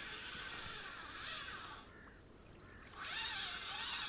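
Spinning reel on a feeder rod being cranked, winding in line on a hooked fish: a whirring whine whose pitch rises and falls with the handle speed. It stops about two seconds in and starts again a second later.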